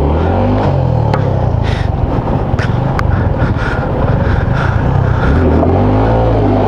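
Vehicle engine revving up and easing off on rough off-road ground, with a steady rumble and a few sharp knocks, two of them about one and three seconds in.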